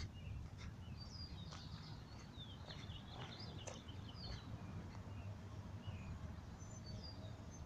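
Birds chirping faintly, a flurry of short calls in the first half and a few more near the end, over a low steady background rumble.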